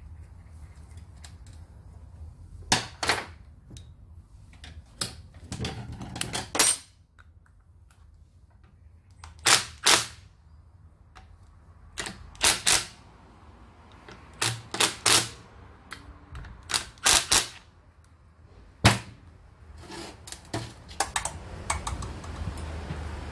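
Hand work on a submersible pump being reassembled: sharp knocks and clacks, about a dozen spread unevenly, many of them in quick pairs.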